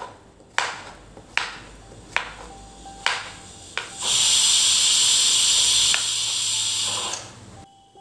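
Kitchen knife chopping pumpkin on a wooden chopping board, about six sharp chops less than a second apart. About four seconds in, a loud steady hiss of steam from a pressure cooker venting, which cuts off near the end.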